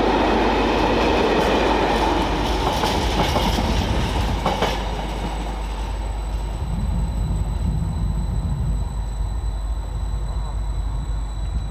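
Container freight wagons clattering past on the rails, wheels rattling over the track. About five seconds in the last wagon goes by and the clatter drops away, leaving a lower rumble.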